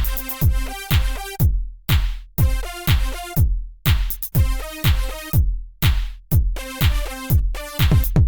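Electronic dance background music: a kick drum on every beat, about two a second, under repeating synth chords.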